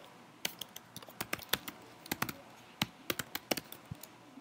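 Typing on a computer keyboard: irregular key clicks, a few per second, with short pauses between runs.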